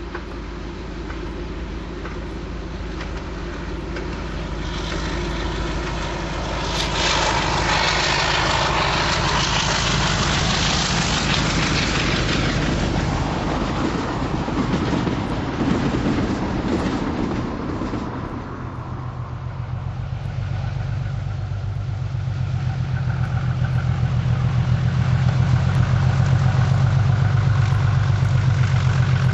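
Diesel locomotives working trains. About a third of the way in, a rushing noise swells and then fades. In the second half, the steady engine note of a BR-blue English Electric Class 37 diesel grows louder as the locomotive approaches.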